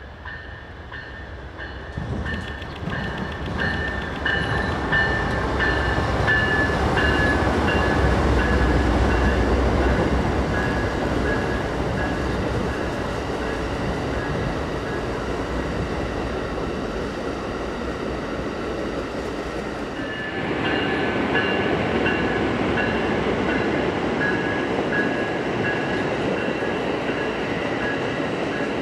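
A passenger train passing: the Siemens ALC-42 Charger diesel-electric locomotive's engine rumbles loudest around 6 to 10 seconds in as it goes by, then the bi-level passenger cars roll past with the steady sound of wheels on rail, over a repeated high ringing tone. About twenty seconds in, the sound jumps abruptly to the cars rolling by from another spot.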